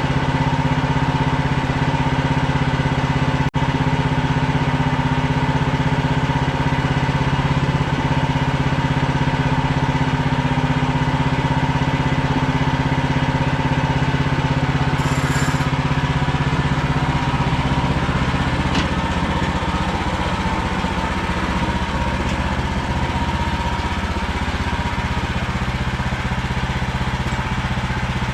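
A small engine running steadily, with a slight change in its note about eighteen seconds in.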